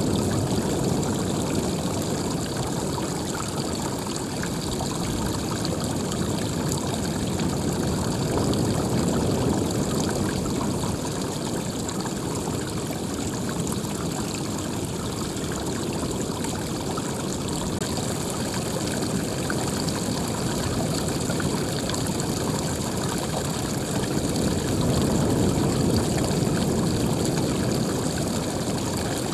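Continuous rushing of running water, a steady wash that swells and eases gently every several seconds.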